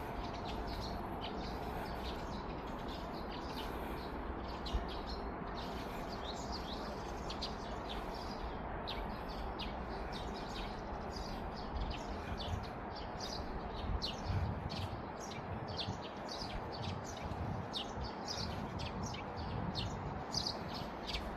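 Small birds chirping: many short, high chirps in quick succession, busier in the second half, over a steady low background hiss.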